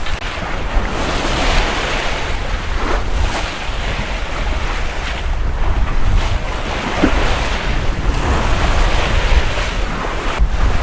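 Wind buffeting the microphone over the steady rush of water along a sailboat's hull under sail, with a heavy low rumble from the wind and no engine running.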